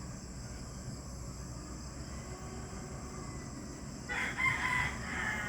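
A rooster crows once, starting about four seconds in, over a steady shrill of crickets.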